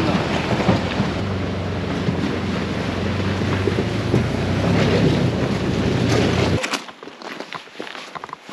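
Can-Am side-by-side's engine running steadily as it rolls over a gravel and rock canyon bed, with wind buffeting the microphone. It cuts off abruptly in the last two seconds, and footsteps crunch on loose stones.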